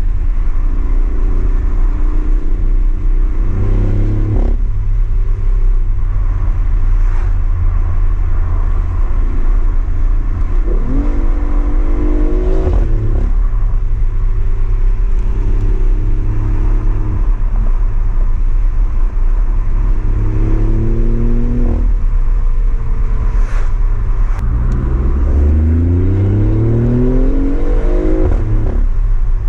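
BMW i8's turbocharged three-cylinder engine running through an aftermarket exhaust, heard from inside the cabin over a low road rumble while cruising. It climbs in pitch under acceleration a few times, with the longest pull near the end, and each climb breaks off suddenly.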